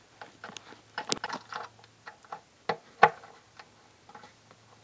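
Speaker wire being handled at a subwoofer terminal: a scatter of small clicks and rustles, with two sharp clicks, the louder one about three seconds in.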